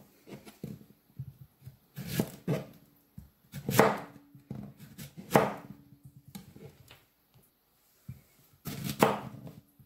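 Chef's knife slicing a courgette into rounds on a plastic cutting board: irregular knocks as the blade goes through the vegetable onto the board, the loudest about 4, 5½ and 9 seconds in.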